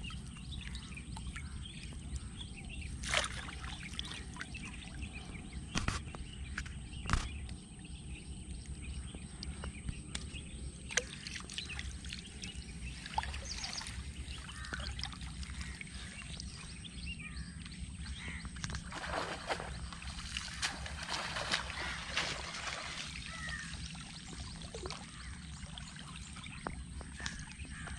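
Water splashing, pouring and dripping as a cast net loaded with mud is lifted and shaken out in shallow creek water, with a few sharp knocks early on and heavier splashing in the middle.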